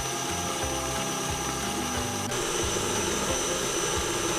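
Electric mixer running steadily, beating butter and sugar together until fluffy, with a constant motor whine. Background music with a steady beat plays underneath.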